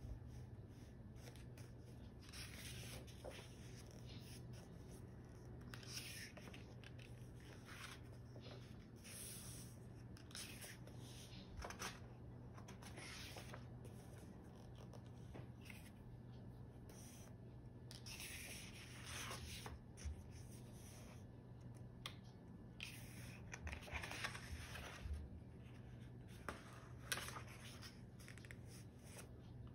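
Pages of a paperback photobook being turned and smoothed by hand: soft paper rustles and swishes every few seconds, faint, over a steady low hum.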